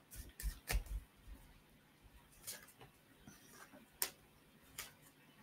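Tarot cards being handled and laid on a desk: soft taps and card clicks, four close together in the first second, then single ones about a second apart.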